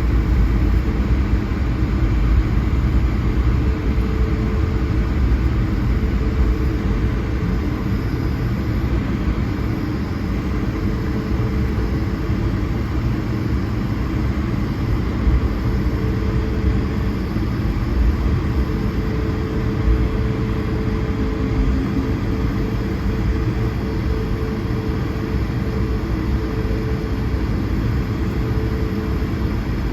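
Cabin noise inside an Airbus A220-100 on the ground before takeoff: its Pratt & Whitney PW1500G geared turbofans running at low taxi thrust, heard as a steady rumble with a faint constant hum.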